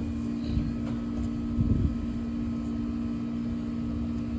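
A steady mechanical hum, two low tones held level throughout, over a low rumble, with a brief louder noise about one and a half seconds in.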